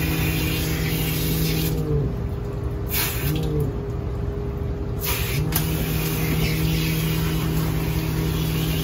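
Water spraying from a handheld bath sprayer onto a dog's wet coat over a steady mechanical hum. The spray and hum stop about two seconds in, come back briefly, then start again a few seconds later.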